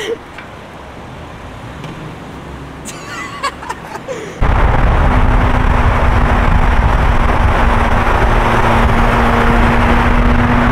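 Quiet outdoor street ambience with faint voices, then about four seconds in an abrupt cut to the loud, steady sound of a supercar driving through a tunnel: a dense engine and road noise with a strong bass and a steady drone.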